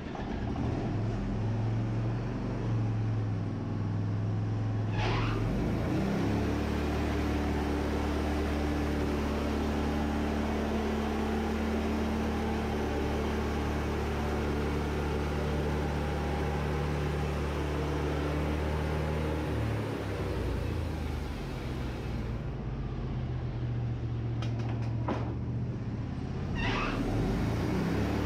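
Wood-Mizer band sawmill's engine running steadily while its band blade cuts through a cedar log. About five seconds in the engine note shifts as the blade takes the cut and a steady hiss of sawing sets in; the sawing hiss drops away about three-quarters of the way through, followed by a few sharp clicks.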